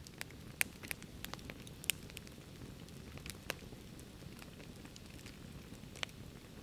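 Wood campfire crackling, with scattered sharp pops over a low steady hiss of burning. The strongest pops come about half a second in, near two seconds in and at about six seconds.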